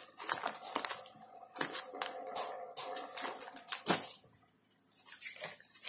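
Cross-stitch kits in plastic bags being handled and shuffled in a pile: irregular crinkling, rustling and light clicks of plastic. There is a short pause about four seconds in.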